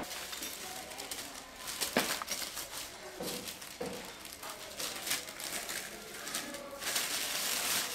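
Thin white packing sheet rustling and crinkling as hands wrap a ceramic teapot, with a denser crinkling stretch near the end. Two short low tones sound a little past the middle.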